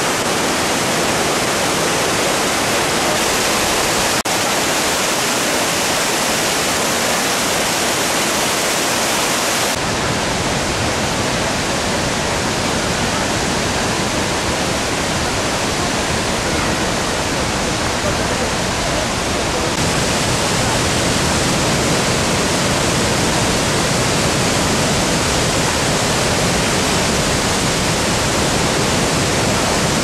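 Large cascading waterfall: water rushing and crashing into the pool below in a loud, steady roar. The sound deepens about ten seconds in.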